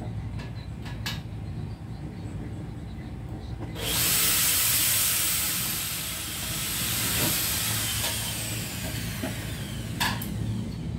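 Power drill boring into a metal screen-window frame: a loud hissing whine starts about four seconds in, eases off over about six seconds with its pitch sliding down, and stops with a click.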